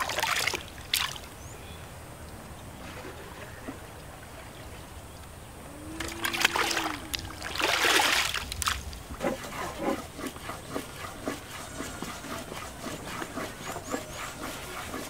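Water splashing and pouring as a plastic bucket is dipped into a concrete water trough and lifted out, loudest from about six to nine seconds in. A short animal call comes just as the splashing starts, and a run of light ticks and taps follows to the end.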